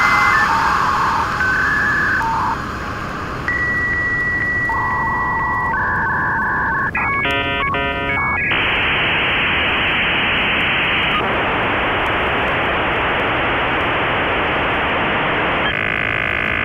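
A run of steady electronic beeps and tones over a hiss, then a short burst of rapidly switching tones about halfway, giving way to a steady hiss; more tones come in near the end.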